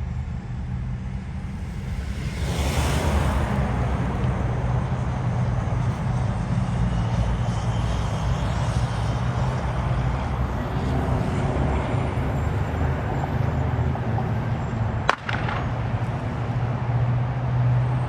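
Steady low rumble of idling vehicle engines and roadway traffic. A wash of road noise swells about two and a half seconds in, and there is one sharp click about fifteen seconds in.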